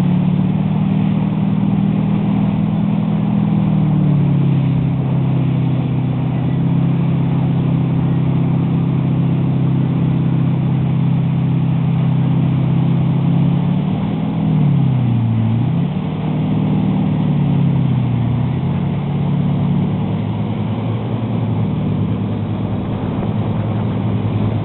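Motorboat engine running steadily under load while towing a tube, with the rush of the wake underneath. The engine note dips in pitch and comes back up twice, about fifteen and eighteen seconds in.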